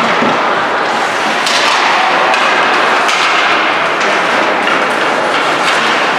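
Ice hockey play in an arena: sticks and puck clacking and skates scraping the ice, with a few sharp knocks over a steady rink din.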